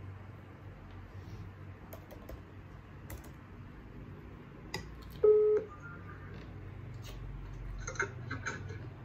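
Scattered faint clicks and clinks of a metal fork in a bowl, and about halfway through a short, loud electronic beep followed by a fainter, higher blip.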